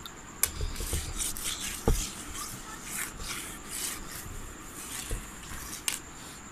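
Cloth wiping a whiteboard clean in repeated rubbing strokes, with a few light knocks.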